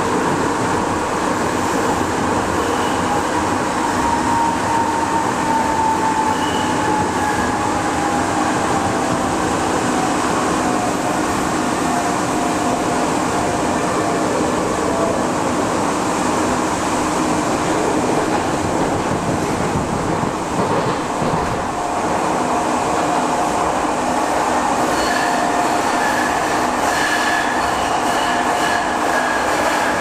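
Siemens S200 light rail car running through a tunnel, heard from inside the car: a steady rumble of wheels on rail with a whine that slowly falls in pitch. Near the end, thin high squealing tones and faint clicks join in.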